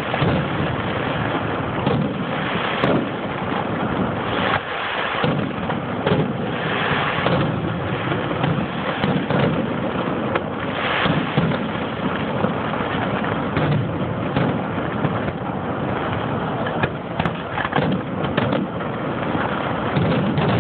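Aerial firework shells bursting in a dense, continuous barrage of bangs and crackle, with no gaps between them.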